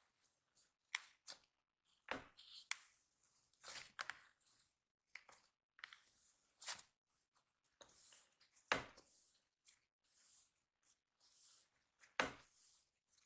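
Cloud slime being stretched and pressed by hand: irregular soft crackling and rustling with sharp little clicks, and a few louder squishes about two seconds in, around nine seconds and near the end.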